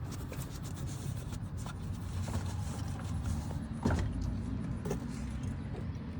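Rag wiping and handling noises at the oil filter mount, with scattered light clicks and one knock about four seconds in, over a steady low rumble.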